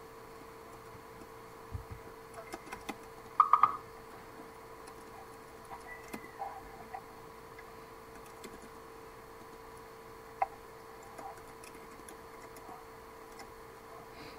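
Scattered taps and clicks of a computer keyboard and mouse over a steady electrical hum, with a quick run of three sharp clicks about three and a half seconds in and another single click near ten seconds.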